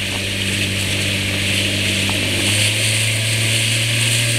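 Motorboat engine running under way, its pitch stepping up about two and a half seconds in as it speeds up, over the steady hiss of rushing water from the wake.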